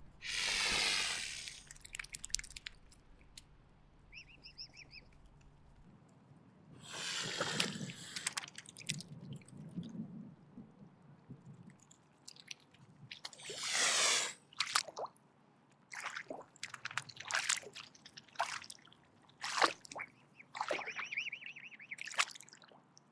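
Mute swan hissing: three long hisses about six seconds apart, with a run of short, sharp hisses and clicks after the third.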